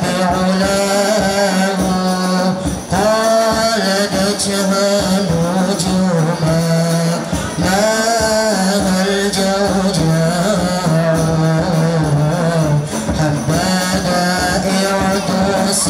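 A young male voice singing a sholawat melody with long held notes, amplified through a microphone, with frame drums (rebana) beating along.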